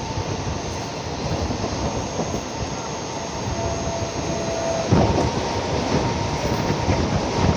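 Mumbai suburban electric local trains on the run: a steady rumble of wheels on rail with a faint steady whine. About five seconds in, a local on the adjacent track passes close by and the sound jumps louder and rougher.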